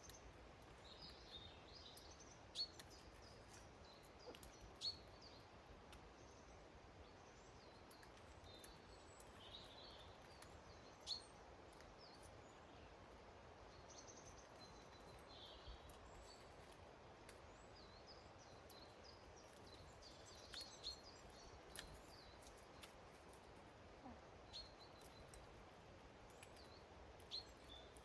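Quiet outdoor ambience with faint, scattered chirps of small garden birds and a few short, sharp taps or clicks, a handful of times.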